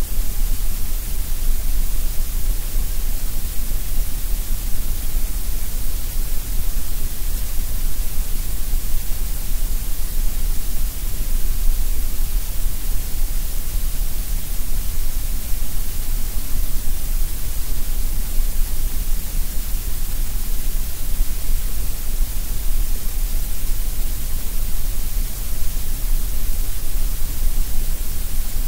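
Steady synthetic grey noise: an even, unbroken hiss, heavy in the deep bass and the treble with a dip in the middle, that does not change.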